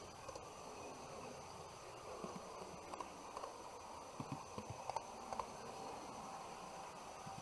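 HO-scale model train running on track: a faint steady buzz, with a handful of short clicks about four to five and a half seconds in.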